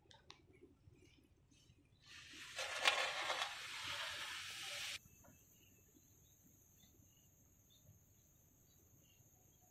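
A few seconds of loud, even rushing noise that cuts off abruptly, followed by steady high-pitched insect trilling, crickets or cicadas.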